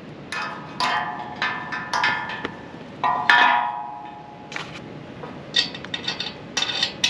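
Metal parts knocking and clinking together as they are handled, each knock ringing briefly, in irregular clusters.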